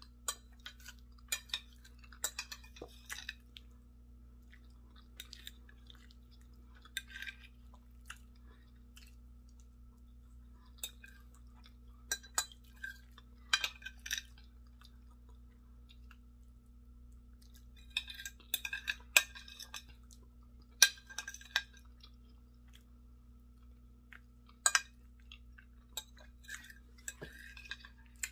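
Close-up eating sounds: wet mouth smacks and chewing of soft grits and eggs, with a metal spoon clinking and scraping against a glass bowl, in scattered clusters over a faint steady low hum.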